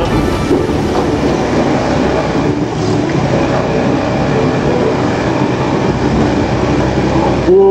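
ATV engine running under way, with a steady rumble and rattle from the ride over rough ground.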